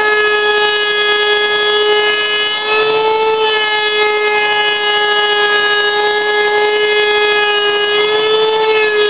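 Electric wood router running at full speed in a router table, a steady high-pitched whine whose pitch lifts slightly and briefly about three seconds in and again near the end.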